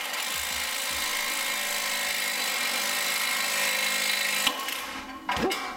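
A power tool runs steadily for about four and a half seconds, driving the press screw of a ball joint separator on a car's front lower ball joint, then stops abruptly. A sharp knock follows near the end.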